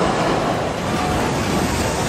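Railway passenger coaches rolling past over a steel girder bridge: a steady rushing noise of wheels on rail.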